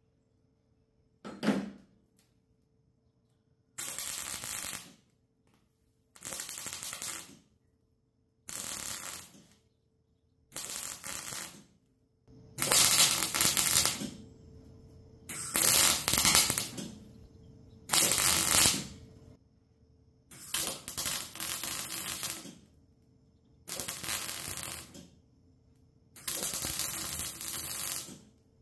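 Welder laying a series of tack welds on sheet-metal patch panels: about eleven bursts of arc noise, each one to two seconds long, with short silent pauses between them.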